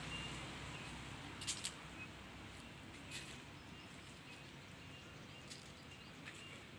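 Faint background noise with brief high chirps and a few sharp clicks: two close together about a second and a half in, another just after three seconds.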